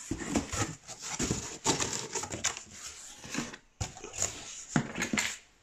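Cardboard box flaps and packing being pulled open by hand: an irregular run of rustling and scraping cardboard noises.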